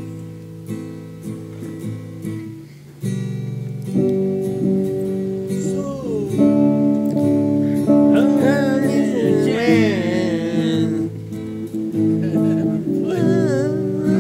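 Two guitars played together, chords strummed and notes picked. Louder playing starts about three seconds in, and from about six seconds a high melody with bending, wavering notes runs over the chords.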